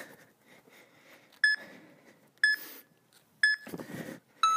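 Interval timer on a tablet counting down the end of an exercise round: three short beeps a second apart, then a longer, lower beep starting right at the end. Between the beeps come short puffs of heavy breathing from the exerciser.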